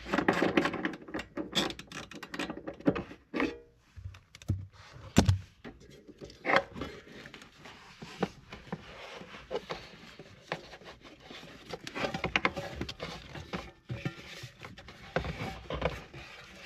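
Irregular clicks, knocks and rubbing as a car's ECU in its metal case is worked loose from its mounting and handled among the wiring-harness plugs.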